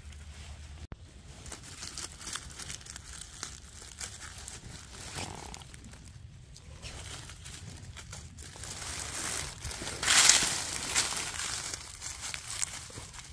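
Dry fallen leaves rustling and crackling as a gloved hand works through the leaf litter to pick chanterelle mushrooms, with a louder rustle about ten seconds in.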